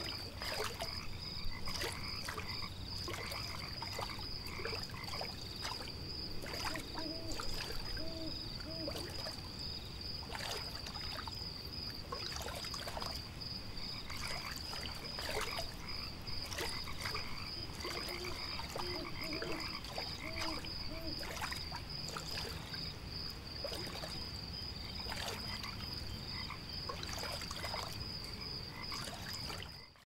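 Frogs croaking in short clusters over a steady, high, pulsing trill, with scattered small clicks and splashes; the sound fades out at the very end.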